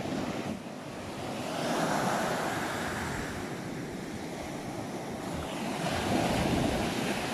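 Ocean surf: waves breaking and washing up the shore, swelling about two seconds in and again around six seconds in.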